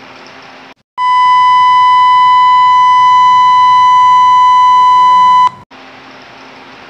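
A loud, steady electronic beep tone, edited in as a sound effect, held at one pitch for about four and a half seconds; it starts abruptly about a second in and cuts off suddenly.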